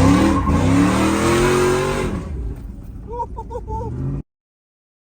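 A truck engine accelerating, its pitch rising for about two seconds before it fades away. Near the end come four short chirps, and then the sound cuts off to silence.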